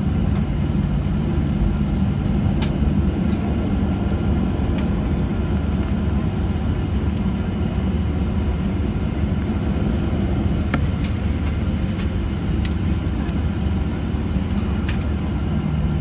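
Steady low rumble and hum inside the cabin of a Boeing 737-800, its CFM56 engines at idle, with a few faint clicks in the second half.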